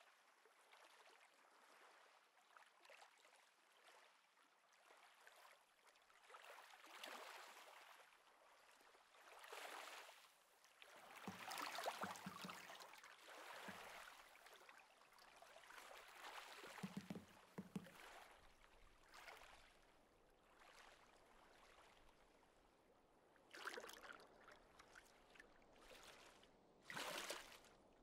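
Faint water swishing and lapping around a small boat paddled through calm water, coming in soft, uneven swells every few seconds, with a few brief low tones near the middle.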